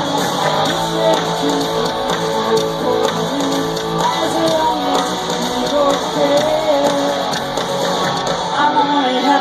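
Live rock band playing, with strummed guitars and a sung melody over them.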